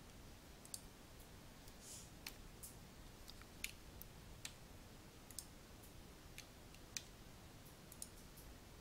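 Faint computer mouse clicks and keyboard key presses: a dozen or so short, sharp clicks at irregular intervals over near-silent room tone.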